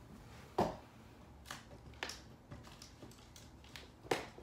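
Scattered light clicks and taps of small objects being handled, with louder knocks about half a second in and near the end.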